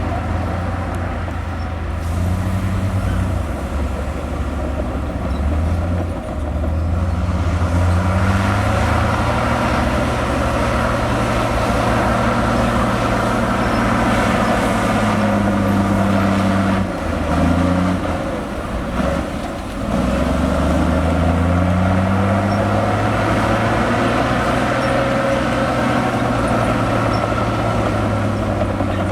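A heavy diesel engine of earthmoving equipment running loudly and continuously, its engine note rising and falling several times as it is worked, with a brief dip about two-thirds of the way through.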